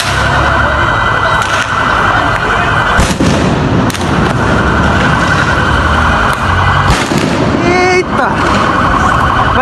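Loud street commotion of shouting voices, broken by a few sharp bangs, about three and four seconds in and again near seven. The bangs fit stun grenades thrown by police into a crowd of fans.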